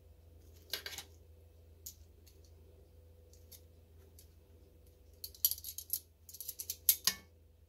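Metal kitchen tongs clicking and tapping while serving fajita filling: a few scattered light taps, then a quick run of sharp clicks about five seconds in.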